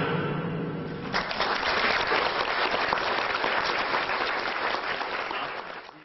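The stage music ends about a second in, then an audience applauds; the applause fades out near the end.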